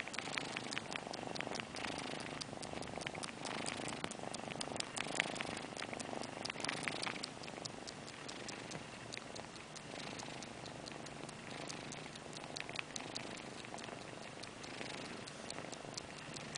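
Cat purring steadily while it suckles on a plush cushion as if nursing, with a quick run of small wet sucking clicks that thins out after the first half.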